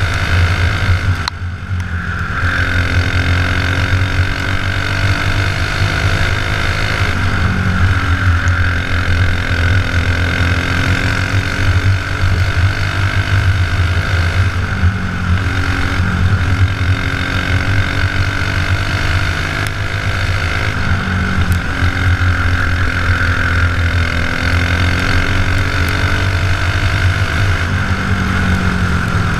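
Racing kart engine running hard on track, its pitch falling and rising again every several seconds through the laps, with a brief drop in level about a second in.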